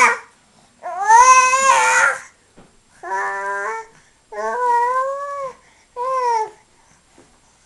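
Baby vocalizing in high-pitched, drawn-out cooing calls: four separate calls of about half a second to a second and a half each, with short pauses between them.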